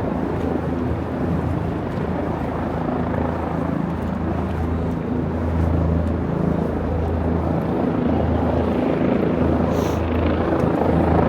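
Steady low mechanical drone over outdoor city noise, with an even hum that holds throughout. A brief click comes near the end.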